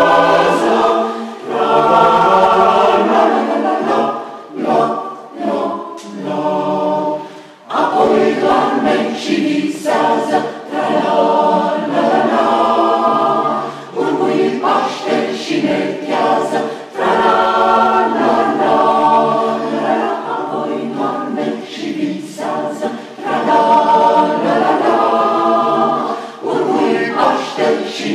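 Mixed choir of women's and men's voices singing unaccompanied in several parts. About four seconds in there is a stretch of short, detached chords, then full sustained phrases resume.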